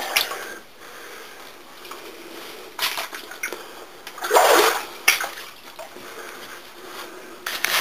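Footsteps and scuffs of someone walking through a narrow rock mine tunnel: a few irregular steps, the loudest a little past the middle.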